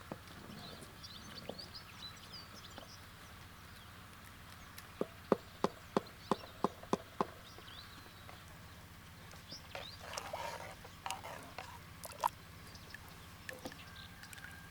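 A quick, evenly spaced run of about eight sharp knocks about five seconds in, with small birds chirping faintly and a rustle near ten seconds.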